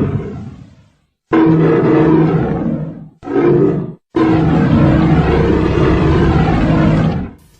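Custom-made Godzilla roar sound effects in the style of Showa-era Burning Godzilla: one roar fades out, then three more roars follow with clean silent gaps between them. The second is short and the last is the longest, about three seconds.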